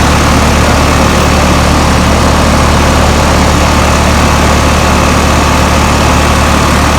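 Outdoor central air-conditioner condensing unit running: a steady, loud low hum from the compressor with the condenser fan's even rush of air over it.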